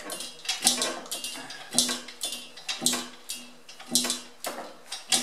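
Manual hydraulic pallet jack being pumped by its handle under the load of a heavy milling machine: metallic clanks, each with a short squeal, come in pairs on the down and up strokes, about once a second. The jack is worn and has trouble holding pressure.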